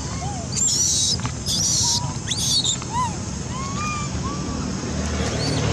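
Young long-tailed macaques screaming: three shrill screams in the first three seconds, then several short, lower squeaks, over a steady low rumble.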